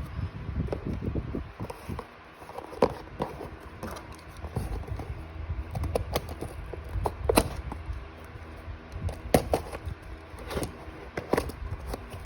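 Irregular clicks, taps and knocks of small items and packaging being handled, over low rumbling contact noise.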